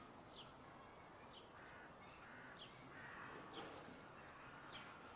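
Faint outdoor ambience with short, high bird chirps, each falling in pitch, repeating about once a second.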